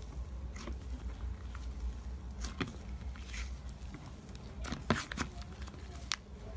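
Dark grey slime being kneaded and folded by hand with a white layer worked in, giving scattered sticky clicks and small pops. The loudest cluster comes about five seconds in, over a steady low hum.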